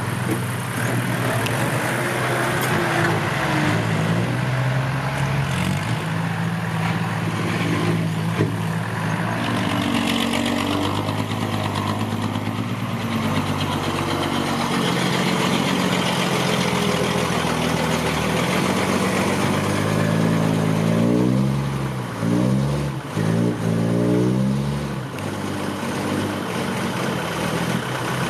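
Six-wheel dump truck's diesel engine running steadily at low revs, then revved up and down several times about three quarters of the way through.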